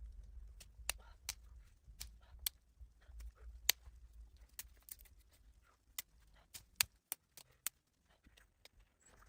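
Irregular sharp crackles and snaps of a small wood fire burning sticks, over a low rumble that stops about seven seconds in.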